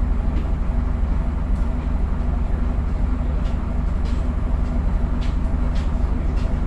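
Bristol VR double-decker bus's diesel engine idling steadily, heard from inside the lower saloon.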